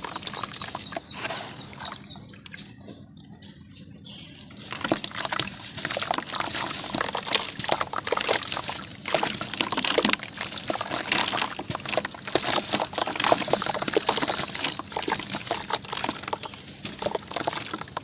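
Water sloshing and splashing in a plastic basin as hands dip and squeeze a soaked cylinder of red dirt, then a dense run of splashes and drips as water and wet dirt stream off the lifted lump back into the basin. The sound eases for a couple of seconds, then picks up again and stays busy.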